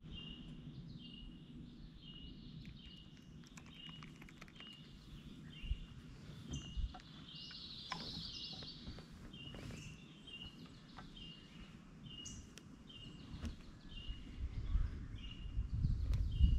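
Quiet riverside ambience: a short high call from a small animal repeats about twice a second, with scattered light clicks and a low rumble that builds near the end.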